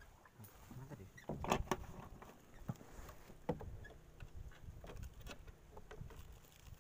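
Scattered clicks, taps and knocks of a lure's hooks and pliers being worked out of a caught fish in a small boat, with louder knocks about one and a half and three and a half seconds in.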